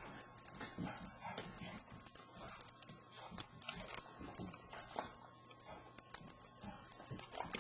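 Labrador puppy scuffling in play-fight: irregular clicks and knocks of paws and claws.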